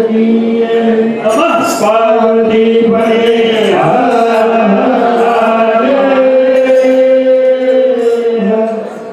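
Men's chorus singing a Hindu devotional bhajan, drawing out long held notes together. The singing dies away near the end as the song closes.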